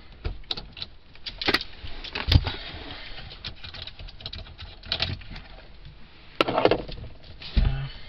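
Irregular metallic clicks, rattles and knocks as the loosened centre bolt is worked out and the steering wheel is handled off its column. The loudest knocks come about two seconds in and again about six and a half seconds in.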